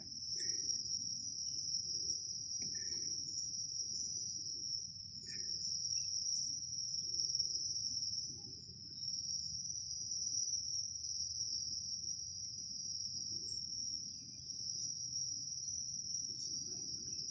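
Steady, high-pitched chorus of tropical forest insects, one unbroken buzzing drone, with a few faint short chirps in the first few seconds.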